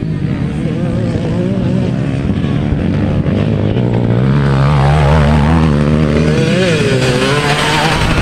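Dirt bike engines running at race pace, a steady drone with the pitch rising and falling. It grows louder about halfway through as a bike comes close.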